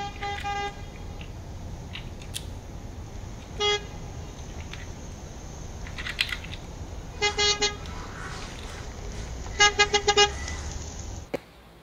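Short electronic car-horn beeps: one near the start, another a few seconds in, then a quick group of three and a quick group of four, over a steady low hum, with a few light plastic clicks from a toy car being handled.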